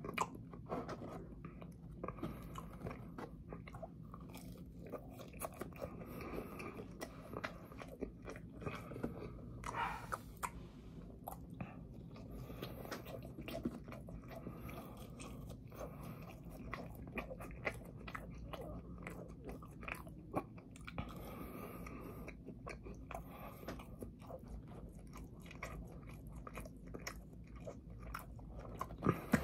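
A person chewing food close to the microphone, with many small wet mouth clicks throughout, over a low steady hum.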